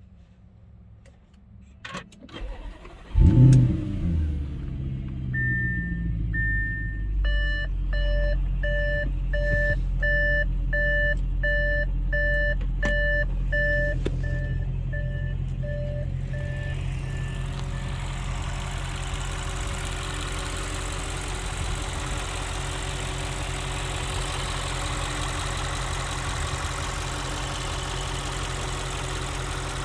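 A 2016 Audi S6's twin-turbo V8 starting: a couple of clicks, then the engine catches with a loud flare of revs that falls away to a steady idle. An electronic chime beeps about twice a second for around ten seconds while it idles.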